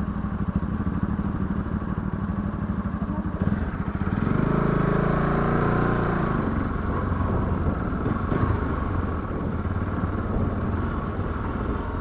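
Motorcycle engine running as the bike moves off and rides along a gravel dirt track. It revs up louder about four seconds in, rising and falling in pitch, then settles to a steady run.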